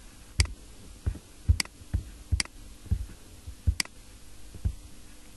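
Computer mouse clicking and scrolling: about a dozen irregular clicks, a few sharp ones among duller low knocks, over a faint steady hum.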